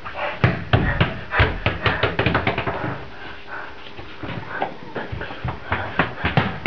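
A toddler's quick footsteps and a rugby ball knocking on a stone-tiled hallway floor: a rapid run of slaps and thumps that eases off about three seconds in and picks up again about a second and a half later.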